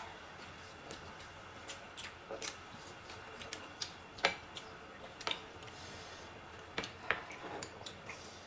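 Chopsticks clicking and tapping against a hotpot and bowls while noodles are served and eaten: a scatter of short, sharp clicks, the loudest a little after four and five seconds in.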